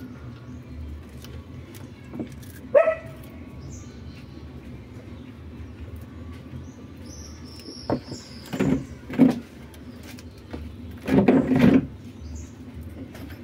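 A cat guarding a piece of meat, growling low and steadily, with a short cry about three seconds in. The growl swells into louder, rougher outbursts at about eight to nine seconds and again at about eleven seconds, as a second cat comes close to the food.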